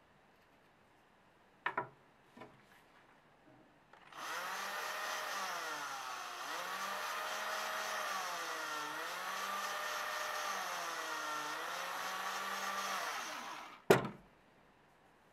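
Cordless drill spinning a small bit through a thin wooden button for nearly ten seconds, starting about four seconds in. The motor's pitch sags three times as the bit bites into the wood and picks up again between. There are a few light clicks of handling before it, and a sharp knock just after the drill stops.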